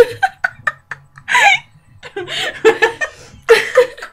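Women laughing in a string of short bursts, some high-pitched, with brief breathy gaps between.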